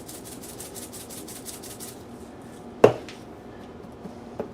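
Spice shaker being shaken rapidly over chicken, a quick rhythmic rattle for about two seconds, then one sharp knock about three seconds in and a few light clicks near the end.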